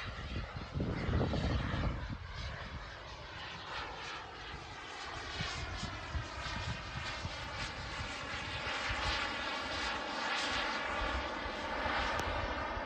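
Turbine engine of an RC model jet running, a continuous jet noise whose bands shift in pitch as the plane moves, with a louder low rumble about a second in.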